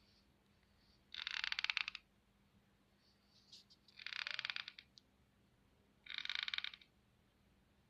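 Deathwatch beetle tapping: three short bursts of rapid ticks, each under a second long, about two seconds apart. This is the beetle knocking its head against the wood, its mating call.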